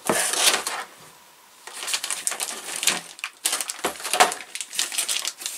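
Crinkling plastic wrap and light knocks of wood as a shrink-wrapped packet of MDF model-kit parts is lifted out of a cardboard box: a short burst at the start, then after a pause of about a second, crinkling that carries on.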